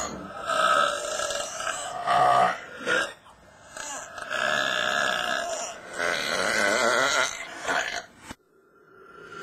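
A person belching loudly several times in a row: long, drawn-out burps with a wavering pitch and a short one in between. The sound cuts off suddenly a little after eight seconds.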